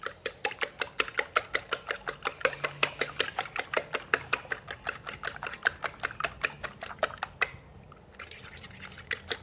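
A fork beating a raw egg in a glass bowl: quick, even clicks of the fork against the glass, several a second, with the wet slap of the egg. The beating pauses briefly about seven and a half seconds in, then goes on more softly.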